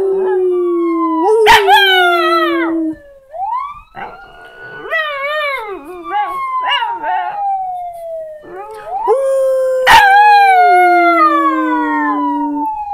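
Jack Russell–Chihuahua mix dog howling in three long, wavering bouts along with a siren played from a sound-board video, whose pitch slowly rises and falls. Two sharp clicks, about a second and a half in and about ten seconds in.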